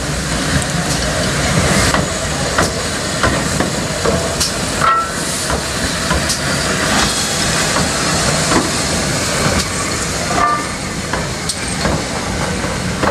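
Steam-hauled passenger train behind two GWR 4-4-0 locomotives, No. 3717 City of Truro and No. 9017 Earl of Berkeley, passing close by: steam hissing as the engines go, then the coaches' wheels knocking over the rail joints. There are two short squeals, about five and ten seconds in.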